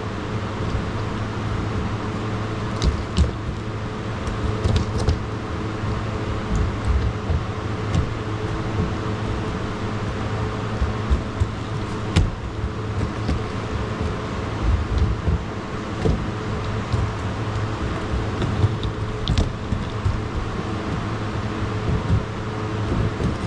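Surfskate on Carver CX trucks rolling and carving back and forth across a plywood mini ramp: a steady low rolling noise from the wheels on the wood, with occasional sharp clicks and knocks from the board.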